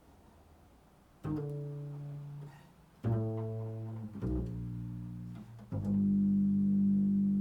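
Four low string notes played slowly in an improvised passage, entering about a second in after a moment of quiet. Each is struck sharply and rings on, and the last is the loudest and sustains.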